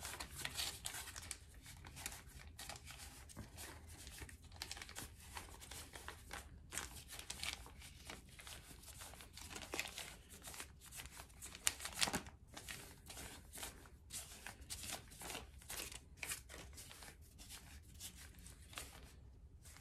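Plastic piping bag crinkling irregularly as hands squeeze and push a thick lightweight-spackling 'frosting' down toward the tip, with a sharper crackle about twelve seconds in.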